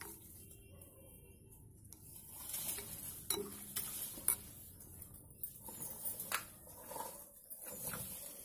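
Metal spoon stirring wet, broken slate pencil pieces in a grey slurry in a glass bowl, scraping and sloshing, with several sharp clinks of spoon on glass from about two seconds in.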